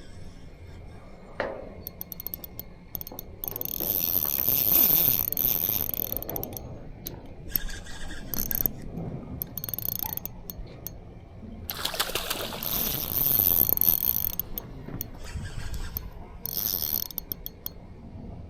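Shimano Vanquish spinning reel ratcheting and whirring in spells, two longer runs and a short one near the end, as its mechanism turns.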